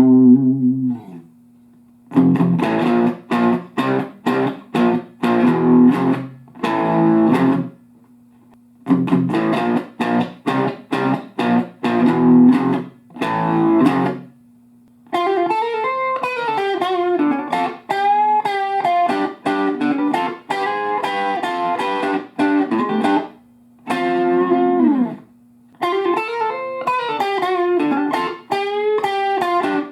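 Electric guitar played through a vacuum-tube amplifier for a tone comparison: chord phrases broken by short pauses, then from about halfway single-note lead lines with string bends and vibrato.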